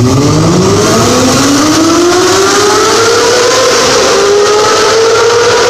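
Honda CBR250RR's 250 cc inline-four engine revving up, its pitch climbing steadily for about three seconds and then holding high near the top of its rev range.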